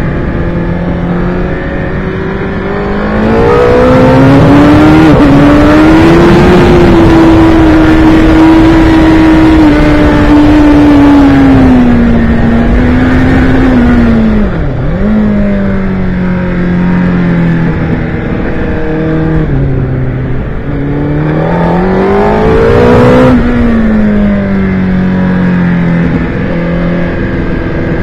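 Sport motorcycle engine heard from on board at track speed, the engine note climbing about three seconds in, holding high, dropping sharply near the middle and climbing again twice as the rider accelerates and brakes through corners. Wind rushes over the microphone, loudest when the bike is fastest.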